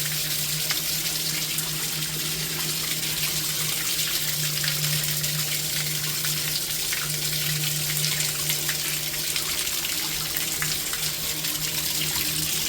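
Steady rushing, water-like noise with a low steady hum underneath, the continuous background of a boiler room.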